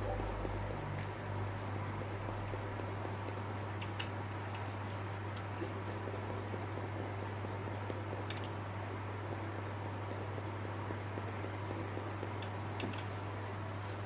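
Pencil scratching on drawing paper as lines are sketched, with a steady low hum behind.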